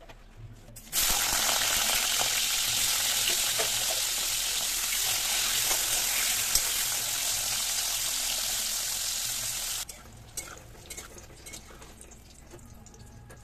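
Pointed gourd (potol) pieces sizzling as they fry in hot mustard oil in a wok. The sizzling starts abruptly about a second in and cuts off suddenly near the end, leaving quieter light clicks of a metal spatula turning the pieces.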